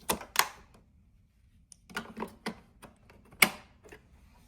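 Clicks and knocks of hard plastic parts being handled on a robot vacuum's self-empty base: two right at the start, a short run about two seconds in, and a single sharp click near three and a half seconds.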